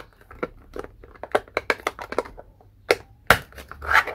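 Light, rigid plastic display-stand parts clicking and knocking as pegged posts are pressed into a square base plate: a quick run of small clicks, with a couple of sharper knocks about three seconds in.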